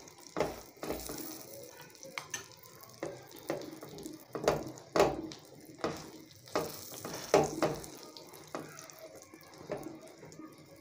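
Egg batter frying in ghee on a tawa beneath a paratha, a steady faint sizzle, with soft irregular pats about once or twice a second as the paratha is pressed down onto the egg by hand.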